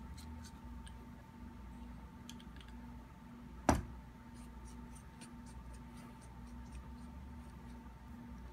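Faint ticks and small clicks of metal parts being handled as a Vulcan regulator is unscrewed and taken apart by hand, with one sharper click a little under four seconds in.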